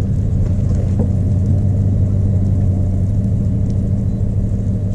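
Engine running steadily with a low hum and rumble.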